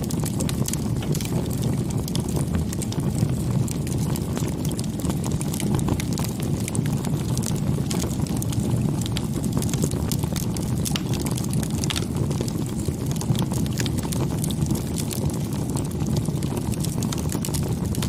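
Wood fire burning: a steady low rumble of flame with many small, sharp crackles and pops scattered all through.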